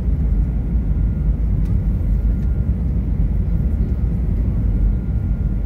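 Jet airliner cabin noise during descent: a steady, loud low rumble of engines and airflow heard from a window seat over the wing, with a faint steady high whine.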